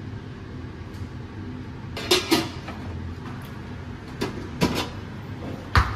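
Metal serving tongs knocking against stainless steel food pans: a handful of sharp clacks, the first pair about two seconds in and the loudest near the end, over a steady low hum.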